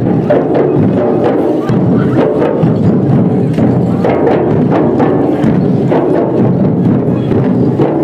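Traditional Gondi folk dance drumming: several drums beaten together in a fast, uneven rhythm, loud and continuous.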